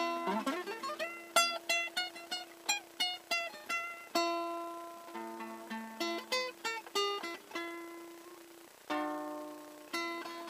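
Solo classical guitar played fingerstyle: quick runs of single plucked notes, a rising slide just after the start, then longer ringing notes and a fuller chord with a low bass note near the end.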